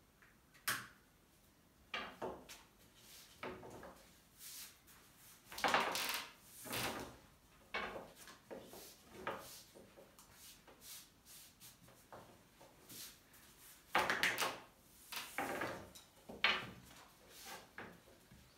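Long thin wooden rolling pin rolling and rubbing over a glass tabletop while thin yufka dough is wound onto it and spread by hand: irregular swishing, scraping rolls with brief knocks, loudest about six seconds in and again around fourteen seconds.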